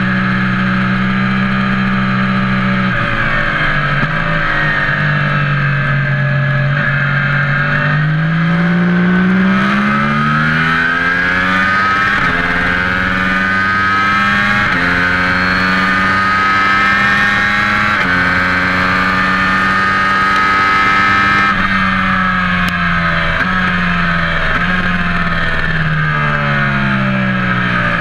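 A vehicle engine running continuously. Its pitch drops suddenly and then climbs again several times, with a short rising sweep around a third of the way in.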